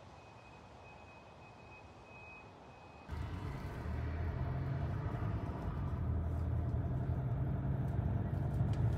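Car engine and road noise heard from inside the cabin: a steady low rumble that starts suddenly about three seconds in and slowly grows louder. Before it there is a quiet stretch with a faint high steady tone.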